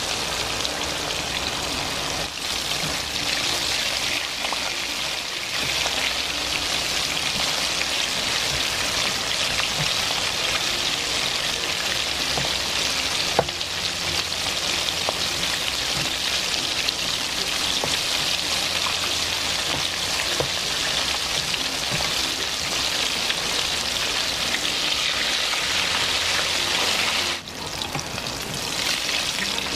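Breaded chicken pieces deep-frying in hot oil in a wok: a dense, steady sizzle and crackle of bubbling oil. There is a single brief knock about halfway through.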